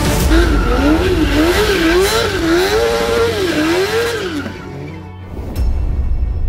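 Motorcycle engine revved up and down about five times in quick succession during a burnout, with tyre squeal, over background music. The revving stops about four and a half seconds in.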